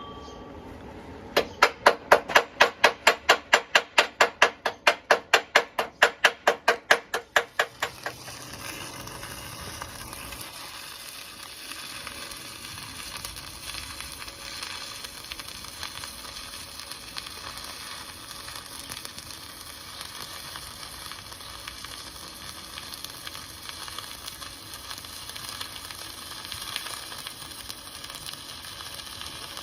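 Electric welding on a steel truck frame: a rapid rhythmic pulsing, about four or five beats a second, for several seconds, then the welding arc giving a steady crackling sizzle for the rest of the time.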